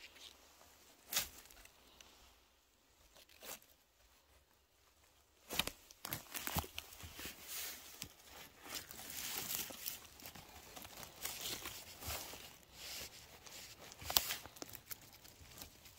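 Dry rustling and crackling of forest litter and twigs underfoot and under hand, with sharp snaps scattered through. It is quieter for a few seconds early on and busier from about six seconds in.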